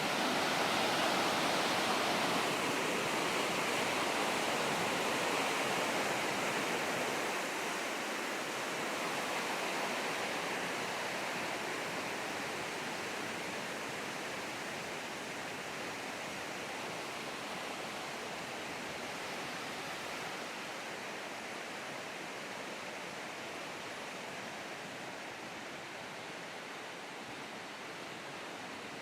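Flash floodwater rushing through a creek channel, a steady roar of water that grows gradually quieter.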